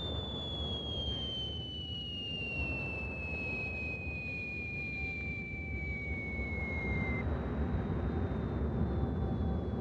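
Film soundtrack: a high tone glides slowly down in pitch over a steady low rumble. The tone stops about seven seconds in, while the rumble grows a little louder.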